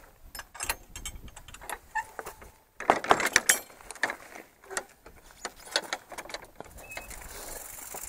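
Metal latch and closer rod of a wooden field gate clicking and clanking as it is worked by hand, with a quick cluster of knocks about three seconds in.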